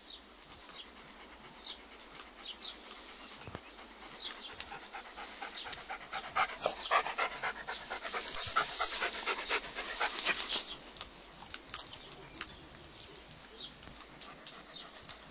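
Dog panting in quick, breathy strokes, growing louder around the middle and then easing off.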